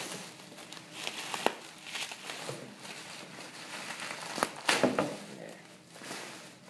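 Packing wrap around a skull replica being pulled open, with irregular crinkling and rustling and a louder burst of crackles about two-thirds of the way through.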